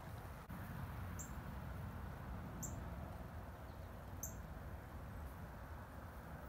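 A small bird's short, thin, very high call, repeated four times about every second and a half, each note dropping slightly, over a steady low outdoor rumble.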